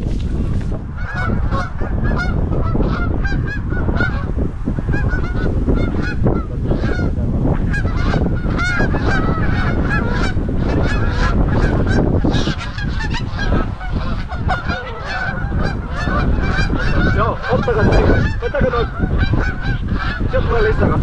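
A flock of geese honking, many calls overlapping without a break, over heavy wind noise on the microphone.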